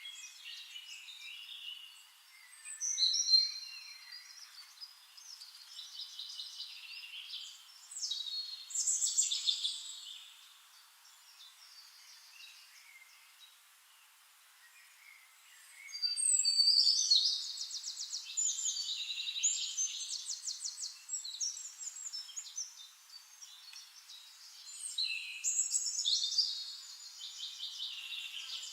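Songbirds singing in repeated phrases of rapid high trills and chirps, with a quieter spell in the middle.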